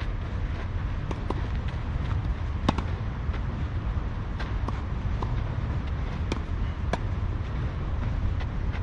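Tennis rally on clay: a string of sharp pops from rackets striking the ball and the ball bouncing, about one every second, the loudest nearly three seconds in, over a steady low rumble.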